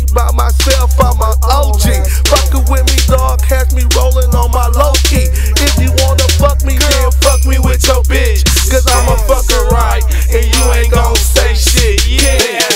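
Hip hop beat with heavy bass and drums, with a rapping voice over it. The bass cuts out for a moment near the end.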